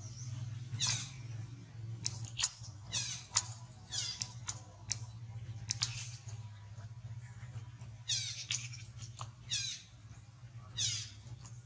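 Baby macaques squealing: about six high-pitched cries that each fall in pitch, with short sharp squeaks between them. A steady low hum runs underneath.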